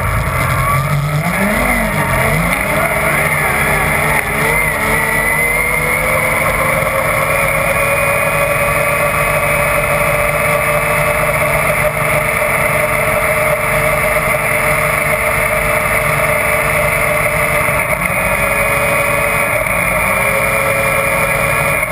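Yamaha Nytro RTX SE snowmobile's three-cylinder four-stroke engine accelerating hard, its pitch climbing over the first several seconds, then held steady at high speed. Near the end the revs dip briefly twice as the throttle eases.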